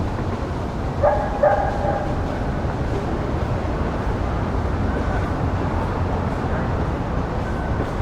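Evening city park ambience: a steady low rumble of distant urban traffic, with a dog barking twice about a second in.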